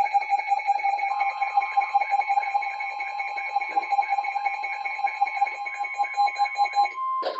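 Emergency alert broadcast audio: a buzzy electronic tone pulsing rapidly, about six times a second. It cuts off with a click near the end as a steady alert tone begins.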